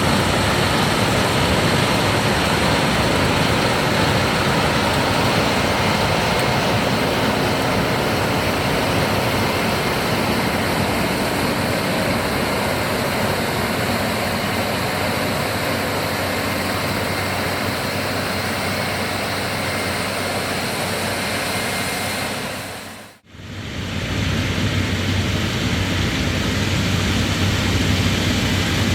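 New Holland CR 11 combine harvester running under load while harvesting soybeans: a steady, dense engine and threshing drone with a faint high whine. It fades out briefly about two-thirds of the way through, then comes back with a deeper hum.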